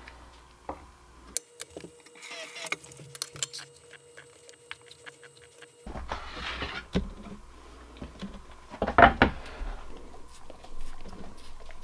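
Scattered light clicks and knocks of kitchen handling, then a wooden cutting board set down on the floor with a sharp knock about nine seconds in, followed by a dog's soft licking and mouthing on the board.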